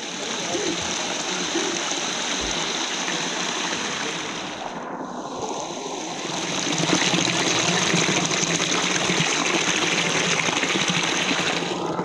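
Spring water trickling and splashing over a small limestone cascade into a pool, a steady rushing that grows louder about halfway through.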